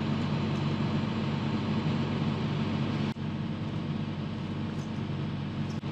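Excavator engine running steadily, a low even hum.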